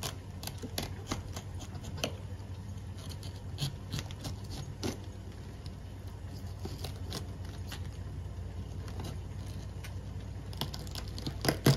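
A knife cutting around the core of a raw green cabbage: irregular crisp cracks and crunches as the blade works through the stiff leaves, a couple of louder ones near the end, over a steady low hum.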